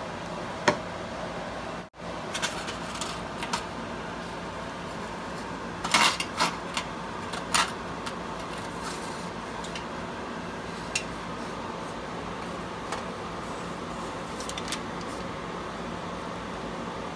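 Steady kitchen background hum with scattered light crinkles and taps as hands work on aluminium foil, pressing filling and cheese into a portobello mushroom cap. A brief drop-out about two seconds in.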